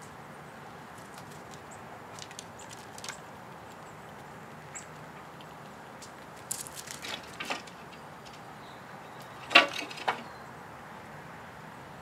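Gray squirrels foraging in a pile of sunflower seeds and peanuts on a wooden board: scattered clicks and rustles of seeds and shells being moved, in a few short clusters, the loudest about nine and a half seconds in. A faint steady hiss runs underneath.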